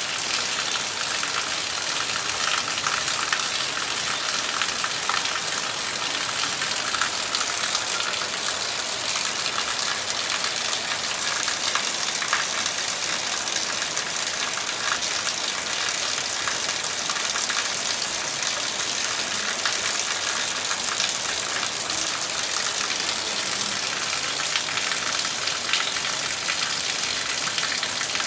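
Heavy rain falling steadily: a dense, even hiss with scattered sharp drop taps.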